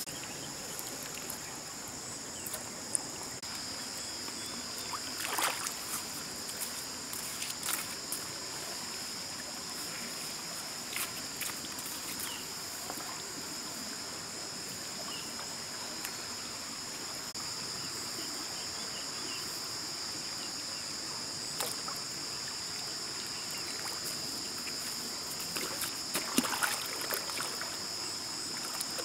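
Insects droning steadily at a high pitch over the low, even rush of a river, with scattered splashes and rustles of hands working wet mud and leafy branches at the water's edge, busiest near the end.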